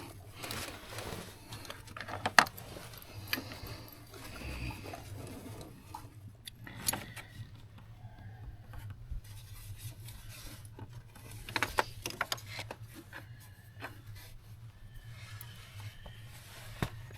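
Scattered clinks, knocks and scrapes of hand tools and metal engine parts being handled during reassembly, with one sharp knock about two seconds in, over a low steady hum.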